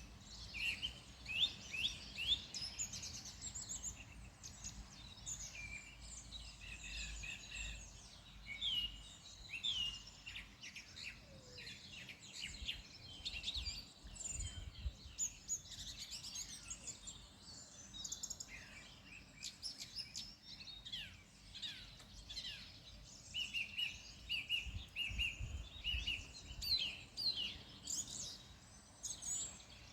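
Several songbirds singing and chirping, with quick trills and short calls overlapping, over a low rumble that swells and fades a few times.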